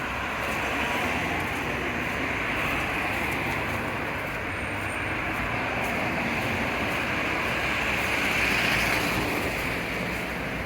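Steady rushing street traffic noise with a low rumble, swelling as a vehicle passes about eight to nine seconds in.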